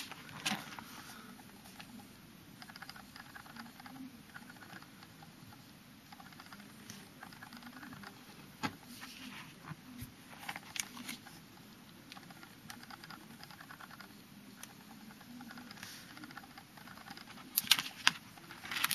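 Faint handling noise from small cards: scattered light clicks and rustles, with a few sharper clicks near the end.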